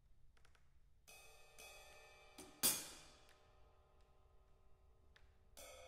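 Drum kit played sparsely and softly with sticks: a few light taps, then cymbals struck about a second in and left to ring, a sharp, louder accent near the middle, and another ringing cymbal stroke near the end.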